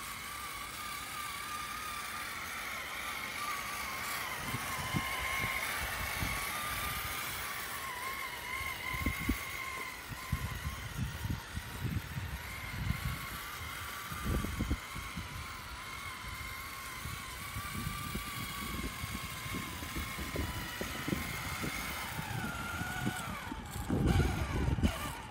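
Traxxas E-Revo RC truck's electric motor and drivetrain whining as it drives and pushes snow with a plow, the pitch wavering with the throttle. Irregular low thumps and rumbles run alongside, heaviest near the end.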